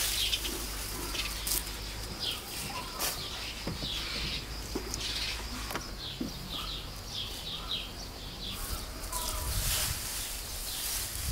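Small birds chirping over and over in short falling notes, with light rustling of leaves and stems; near the end a louder, longer rustle of dry grass being stirred.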